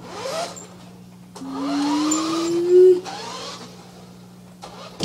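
Small radio-controlled toy car's electric motor and gears whirring as it drives off, with a whine that rises in pitch for about a second and a half.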